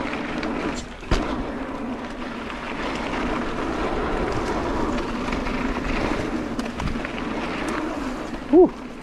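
29er mountain bike descending a dirt singletrack: tyres rolling over dirt and rock with the bike rattling, and one sharp knock about a second in.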